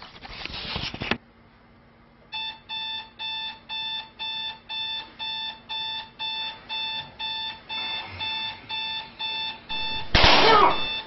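Electronic alarm clock beeping, a regular beep about twice a second, starting a couple of seconds in after a second of loud hissing noise. Near the end a loud burst of noise with a voice in it cuts across the beeping.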